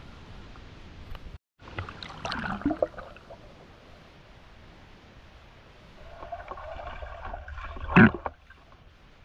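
Water sloshing and gurgling around a spearfisher's underwater camera as he moves through a river at night, with a louder burst of splashing about two seconds in and one sharp, loud knock about eight seconds in. The sound cuts out completely for a moment about a second and a half in.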